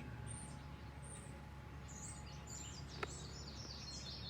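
Songbirds chirping, turning into a quick run of short, high repeated notes from about halfway through, over a steady low outdoor background. A single sharp click about three seconds in.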